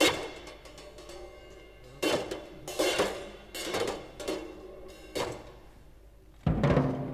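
Live free-jazz duo of drums and piano playing: sparse, irregular struck hits with pitched notes ringing on after each. A loud low hit comes near the end.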